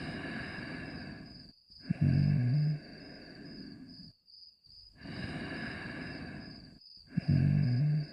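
Cartoon dog snoring in a slow repeating cycle: a long breathy rasp, then a short, louder low snort about two seconds in and again near the end. A faint, steady cricket-like chirping runs underneath.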